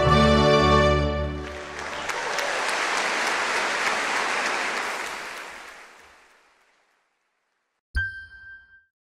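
Music ends on a held chord, followed by applause that swells and then fades away over several seconds. Near the end a single bright chime strikes and rings briefly, as a logo sound.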